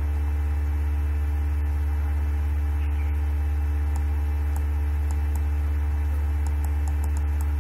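Steady low electrical mains hum from the recording chain, loud and unchanging, with a few faint ticks.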